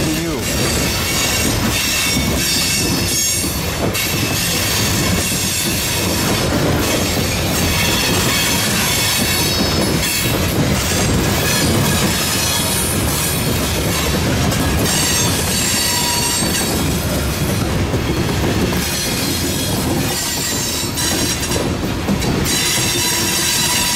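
Freight cars (open hoppers and gondolas) rolling past close by, their steel wheels rumbling and clattering on the rails, with high-pitched wheel squeal running through it.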